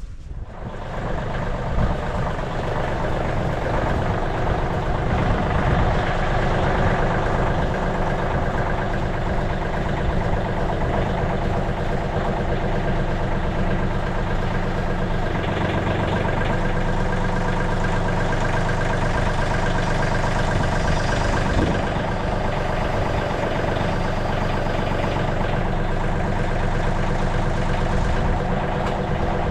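Engine of a MechMaxx SM32 portable bandsaw sawmill rising to speed in the first couple of seconds, then running loud and steady.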